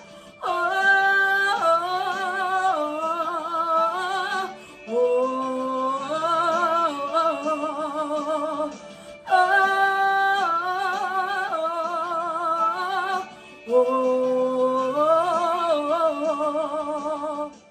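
Worship song: a singer holding long, wavering sustained notes in four phrases with short breaks between them, then cutting off abruptly.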